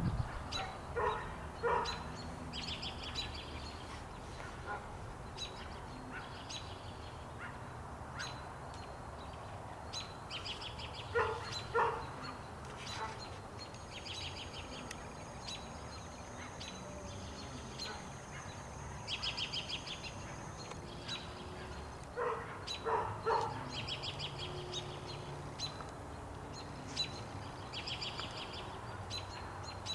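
A dog barks in short bursts of two or three, three times about ten seconds apart. Birds chirp in repeated high trills between the barks.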